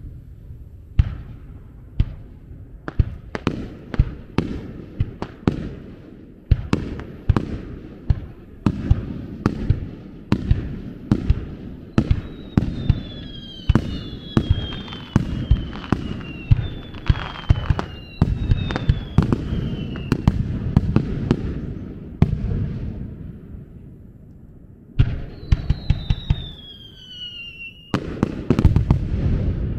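Fireworks display: aerial shells bursting in a rapid string of sharp bangs, each trailing a low rumble. Falling whistles sound through the middle and again near the end, after a short lull.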